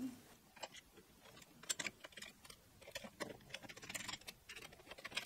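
Faint, irregular small clicks and taps, sparse at first and more frequent in the last two seconds, from a screwdriver turning a bolt and small metal parts being handled on a 3D printer's aluminium frame.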